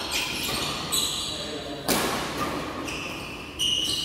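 Badminton rallies in a large hall: a racket strikes the shuttlecock with a sharp crack about two seconds in and again near the end, and sneakers squeak on the court floor in short high chirps. Voices chatter in the background.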